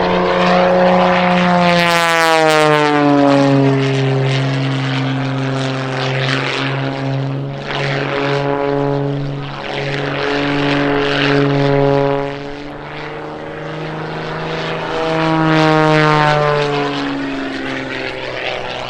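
A propeller airplane flying past. Its buzzing propeller tone drops in pitch about two seconds in as it passes, and a second swell with another falling pitch comes near the end.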